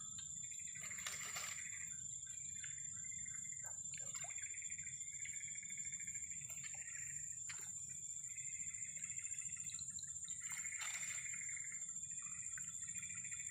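Night insects: a steady high-pitched drone, with shorter repeated chirping calls coming and going beneath it. Two brief noisy rustles come through, about a second in and again later on.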